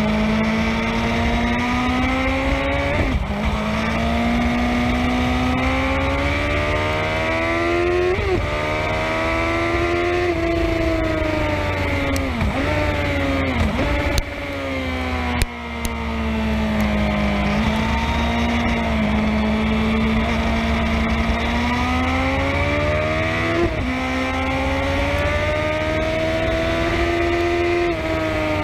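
Sport motorcycle engine and exhaust at race pace, the pitch climbing and dropping sharply at each upshift, then falling through downshifts as the bike slows midway before pulling hard again through two more upshifts near the end, over heavy wind rush.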